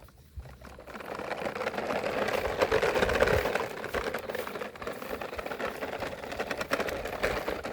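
Toy vehicle rattling and whirring, with rapid clicking, for several seconds. It builds up to its loudest about three seconds in.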